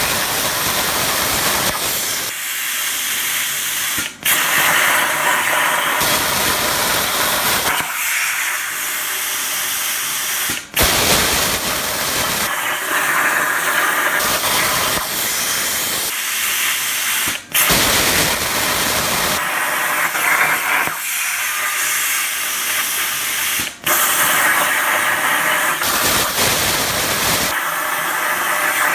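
Razorweld 45 plasma cutter's machine torch hissing steadily as it cuts 16-gauge sheet at about 32 amps, dropping out briefly four times.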